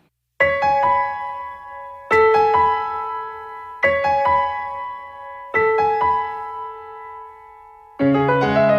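Solo piano music: a short phrase of ringing notes repeated four times, then a fuller, deeper chord comes in near the end.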